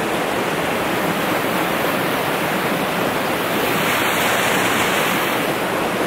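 Shallow, clear mountain stream running steadily over rocks.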